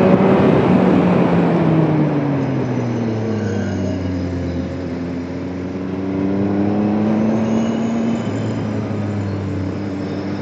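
Motorcycle engine running over wind rush, its note falling for the first four or five seconds as the bike slows, then rising again as it picks up speed, with another dip and rise near the end.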